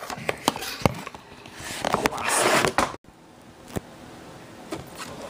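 Hands handling a cardboard box and its packaging: a run of clicks and knocks, then a loud rustling scrape about two seconds in. It cuts off abruptly near the middle, leaving quieter room tone with a few faint taps.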